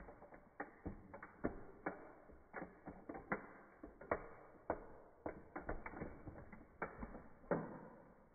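A toy car's body being crushed under a high-heeled shoe: irregular sharp cracks and creaks as its roof and doors give way, two or three a second, with the loudest crack near the end.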